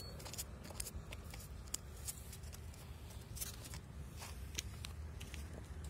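Faint, irregular clicks and rustling of a hand-held camera being handled and moved, over a steady low rumble.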